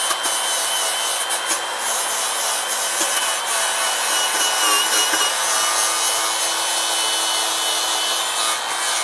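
Power tool running steadily with an abrasive grinding, rasping noise and a steady high whine.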